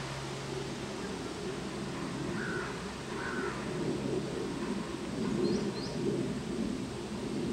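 Wind gusting over the microphone as a dust devil crosses the sand arena, a rough rushing that swells and eases, with a few short bird chirps about two and three seconds in and again near five and a half seconds.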